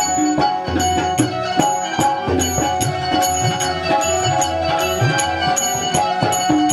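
Instrumental interlude of a Hindu devotional song (bhajan): a steady percussion beat about twice a second under a sustained melody.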